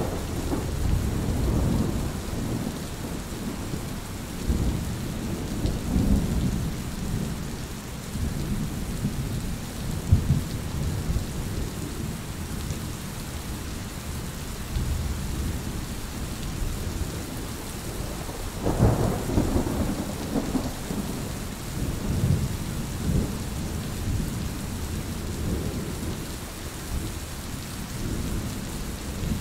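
Steady rain with rolling thunder rumbling low underneath, swelling to a louder peal about two-thirds of the way through.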